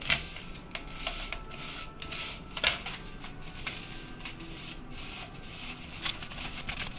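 Spatula scraping and pressing butter and sugar around a mixing bowl, a gritty rubbing of sugar against the bowl as the butter and sugar are creamed together. Two sharper knocks of the spatula on the bowl, one at the start and one near the middle.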